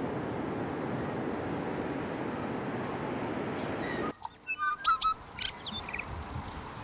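Surf breaking and washing up a beach, a steady rushing that cuts off suddenly about four seconds in. Then birds calling, a quick burst of short chirps and squawks, followed by a few fainter calls.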